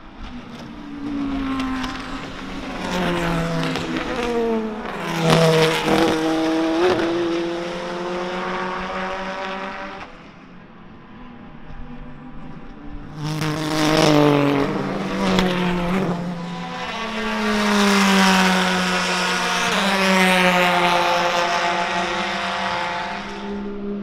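Race car engines passing through a corner one after another, each braking down through the gears and then accelerating away, the pitch dropping and then climbing in steps with the shifts. The loudest passes come about five seconds in and again from about 13 seconds.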